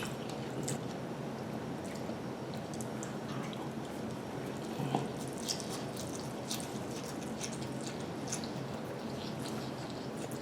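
Wet chewing and mouth sounds of someone eating lo mein noodles: scattered small smacking clicks over a steady background hiss, with a slightly louder bite about five seconds in.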